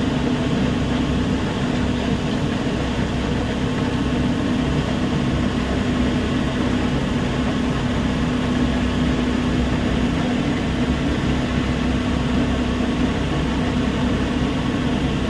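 Heavy machinery running steadily: a constant mechanical drone with one unchanging hum.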